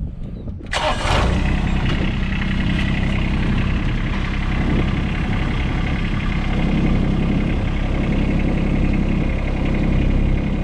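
John Deere X748 garden tractor's three-cylinder diesel engine cranked by the starter, catching about a second in and then running steadily.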